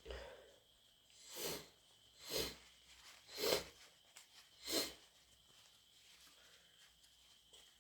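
A person with a heavy head cold sniffing four times in a row, about a second apart: short sharp sniffs through a congested nose.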